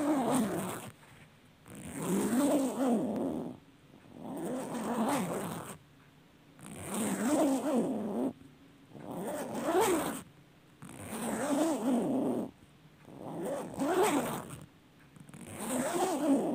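A long zipper being drawn back and forth repeatedly, in about eight rasping strokes roughly two seconds apart. Each stroke sweeps up and down in pitch.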